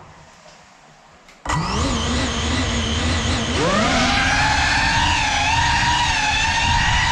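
GEPRC Cinelog 35 FPV cinewhoop's brushless motors and propellers starting up suddenly about a second and a half in with a high buzzing whine. The whine rises in pitch a couple of seconds later as the quad throttles up to fly, then holds with small wavers.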